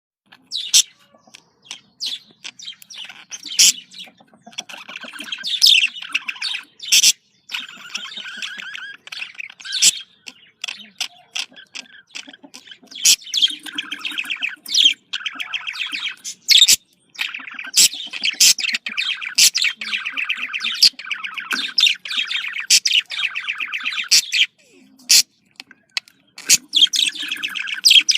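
Budgerigars warbling and chattering: a running buzzy warble punctuated by frequent short, sharp chirps.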